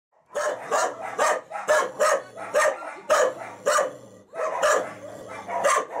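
A large shepherd-type dog barking over and over, about two barks a second, with a short pause about four seconds in.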